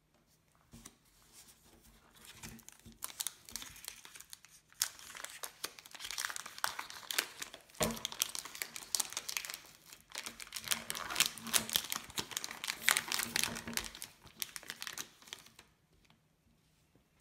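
A Cadbury Dairy Milk chocolate bar's wrapper being crinkled and peeled open by hand, in bursts of crackly rustling with a short lull about ten seconds in. A single knock about eight seconds in; the rustling stops shortly before the end.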